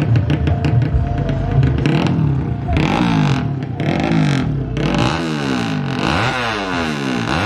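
Fuel-injected 130cc drag bike engine being revved over and over, its pitch climbing and dropping with each throttle blip about once a second during tuning. Background music with a beat plays under the first couple of seconds.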